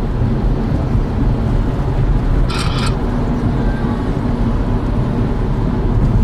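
Steady road and engine rumble heard inside a car's cabin at expressway speed, with a brief higher hiss about two and a half seconds in.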